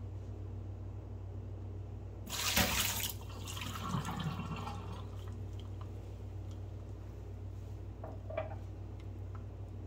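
Tea poured from a mug into a stainless steel sink: a short, loud splash about two seconds in, then trickling and dripping for a couple of seconds as the mug empties. A steady low hum runs underneath.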